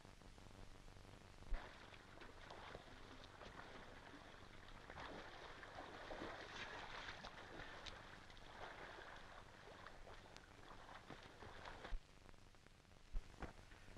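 Very quiet old film soundtrack with a steady low hum and hiss, and a few sharp clicks. Faint splashing of water rises around the middle as a bucket is dipped into a lake.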